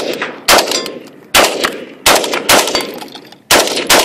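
Zastava PAP M70 semi-automatic AK-pattern rifle firing single shots in quick succession, about seven in all, roughly one every half second to second, each crack followed by an echoing tail.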